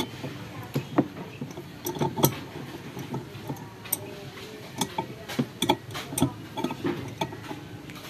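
Irregular light clicks and knocks from hands working on a twin-tub washing machine's gearbox and drive-belt assembly.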